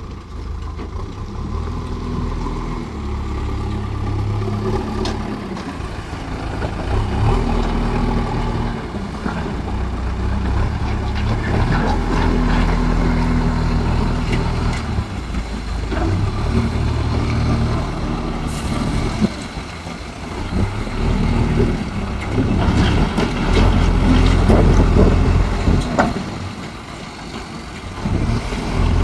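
Diesel engine of a JCB earth-moving machine running and revving up and down over and over as it works, with a few sharp knocks.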